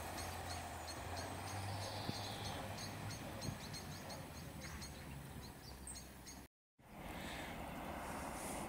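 Open-air station ambience: the low hum of a departing diesel railcar fades away in the first few seconds, under a high, even chirping repeating about three times a second. The chirping stops with a brief dropout about two-thirds through, after which only quiet outdoor background remains.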